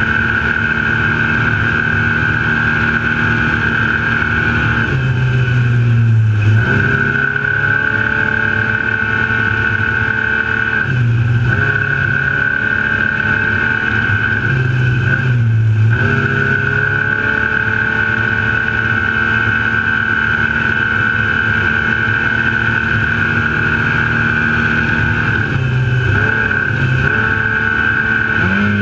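Trophylite off-road race truck running hard at speed, its engine heard close up from a hood-mounted camera with a steady high whine over it. The engine note drops and climbs back about five seconds in, again around eleven and fifteen seconds, and near the end, as the driver lifts and gets back on the throttle.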